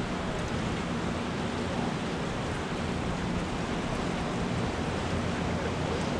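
Steady rushing of turbulent whitewater pouring through the river below a dam.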